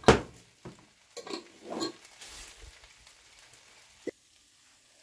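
Wooden spatula stirring and scraping fries in a frying pan: a loud knock right at the start, then a few scraping strokes over the next two seconds. These fade to a faint hiss, with a single click about four seconds in.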